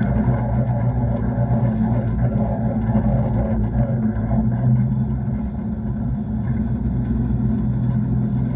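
Vintage race car's engine running steadily at low revs, heard from inside the open cockpit while the car rolls slowly at paddock speed. The level eases slightly a little past halfway.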